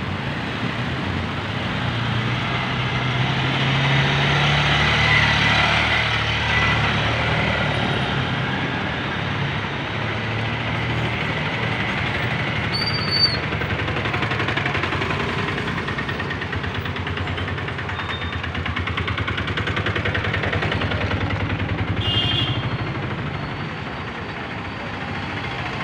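Street traffic noise: the engines of nearby vehicles such as auto-rickshaws running and passing, with a brief high chirp about halfway through.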